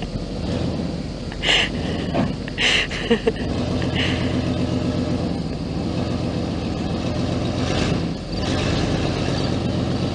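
Car engine running and revving under load as a vehicle pulls on a chain to straighten a bent car frame against a tree. Two short hissing bursts come about one and a half and two and a half seconds in.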